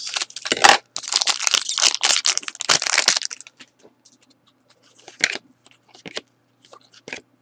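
Scissors cutting open a foil trading-card pack and the foil wrapper crinkling as it is pulled open, for about three and a half seconds. Then a few short clicks and snaps as the stack of cards is handled and flicked through.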